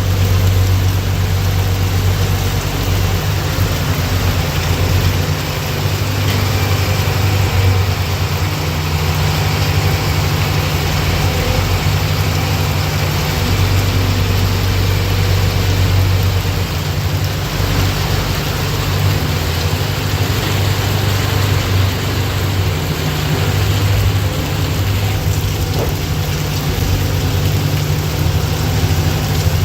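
Hyundai R215L crawler excavator's diesel engine running steadily with a deep hum that swells and dips a little, with a rushing hiss over it.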